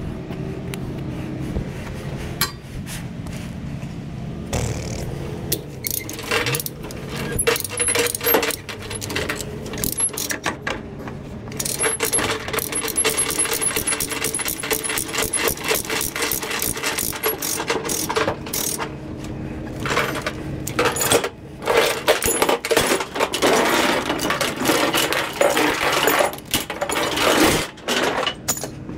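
Steel tie-down chains and a chain binder being worked on an aluminium trailer deck: links clinking and rattling, with runs of quick, regular clicks as the binder is worked. A steady low engine hum sits under the first few seconds.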